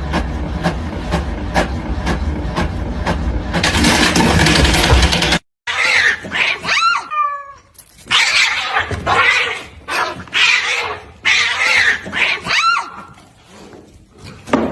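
A steady machine-like running noise with a regular click about every two-thirds of a second, swelling into a rush of noise and cutting off suddenly about five seconds in. Then a cat caterwauling: a string of drawn-out, wavering yowls.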